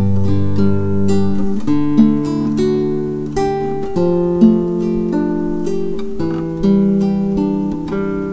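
Acoustic guitar music: plucked and strummed chords, with the chord changing every second or two.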